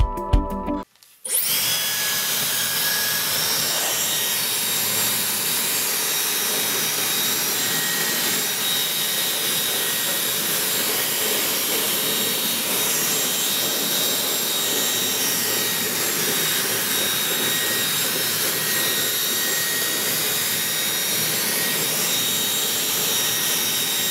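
Dyson Supersonic hair dryer running steadily: a rush of blown air with a faint high whine, starting about a second in.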